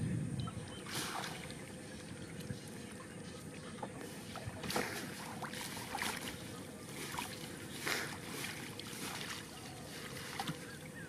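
Water splashing and sloshing as a large fishing net is hauled by hand over the side of a boat, with a sharper splash every second or two over a steady low rumble.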